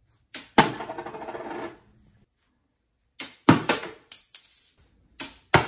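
A quarter dropped off a ruler three times. Each time a sharp tap on the ruler is followed, roughly a quarter to a third of a second later, by the coin hitting the floor and rattling briefly to rest. The tap and the landing are the two clicks that start and stop the phone's acoustic stopwatch timing the coin's free fall.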